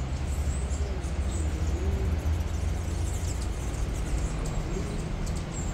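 Hummingbirds giving short, high squeaky chirps over a steady low rumble.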